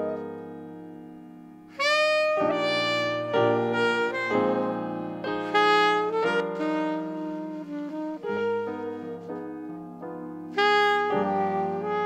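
Alto saxophone and piano playing a slow jazz ballad. A piano chord dies away at first; about two seconds in the saxophone enters with a held note and carries the melody in long phrases over the piano's chords.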